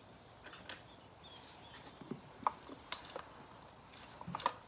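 Sparse light metallic clicks and taps as the clutch of a Stihl 046 chainsaw is jiggled with a small tool, a check for loose parts inside it; a few more clicks come close together near the end.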